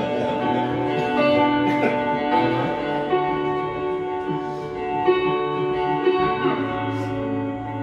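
Electric guitar played solo through an amplifier: picked notes and chords left to ring into one another, the instrumental opening of a song before the vocal comes in.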